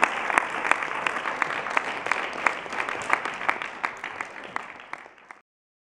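Group of people applauding, with a steady beat of about three claps a second running through it. The applause fades and then cuts off suddenly near the end.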